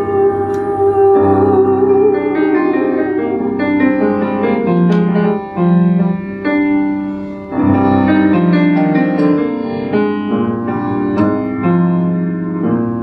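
Piano playing the instrumental ending of a cabaret song, with chords and melody notes in the middle register. A held sung note with vibrato trails off about a second in.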